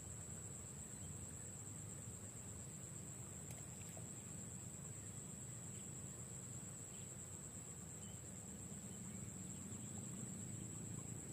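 Insects chirring steadily, a continuous high-pitched drone, over a faint low rumble.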